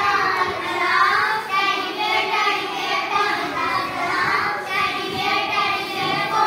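A group of young children singing together in unison, a classroom rhyme or song in chorus.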